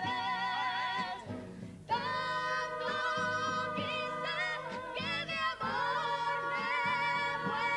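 A Cádiz carnival comparsa chorus singing together in several voices, holding long notes with vibrato. There is a short break about a second and a half in, and then they sing on.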